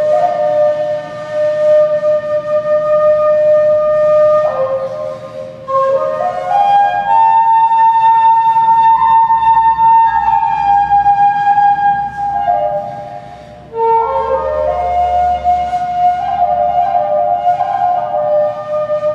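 Background music: a flute playing a slow melody of long held notes that slide into one another.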